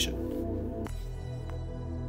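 Soft ambient background music with sustained low notes and no narration; the chord changes about a second in.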